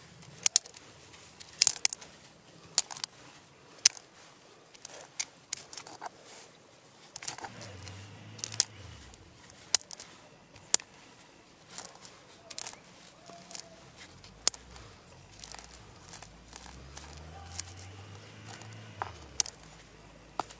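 Castor seeds being cracked between a small hand-held stone and a larger rock: a run of sharp, irregular cracks and taps, stone on shell and stone on stone.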